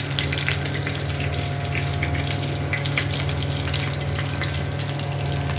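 Oil sizzling in a frying pan after karimeen (pearl spot) fish have been shallow-fried in it: a steady sizzle with many small crackles, over a steady low hum.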